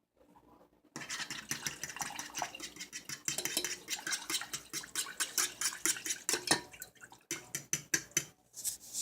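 A kitchen utensil scraping and clicking rapidly against cookware, starting about a second in and going on with a brief pause near the end.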